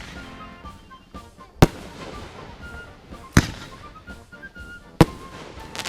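Fireworks going off: three sharp bangs about a second and a half apart, with a hissing burst starting near the end.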